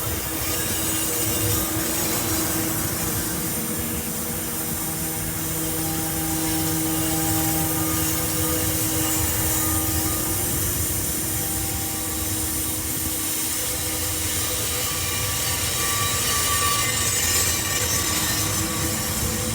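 Diesel train locomotive running steadily, a constant hum carrying a few faint steady tones.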